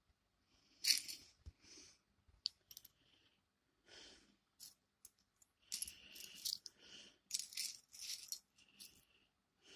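Small plastic LEGO pieces clicking and clattering as they are sorted by hand, in irregular bursts, busiest in the second half.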